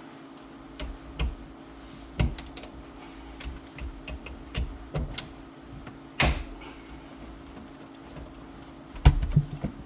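Irregular clicks and knocks of a hand tool and metal parts as the upper seat belt anchor bolt is undone and removed, with a sharper knock about six seconds in and a quick cluster of knocks near the end.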